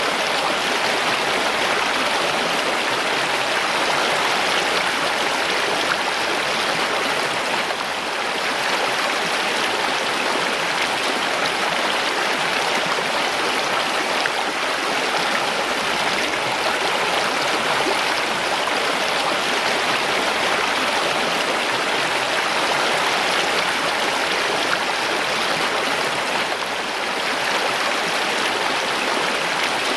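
Mountain stream rushing and splashing over rocks, a steady, unbroken water noise.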